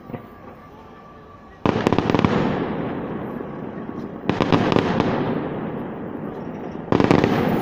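Fireworks salute with aerial shells bursting: three sudden loud bangs about two and a half seconds apart, each fading away over the following couple of seconds.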